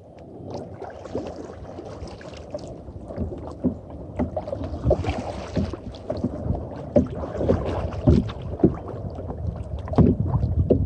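Kayak paddling: paddle strokes splashing in the water and knocking on the hull, over a steady low rumble. The splashes and knocks come more often from about three seconds in.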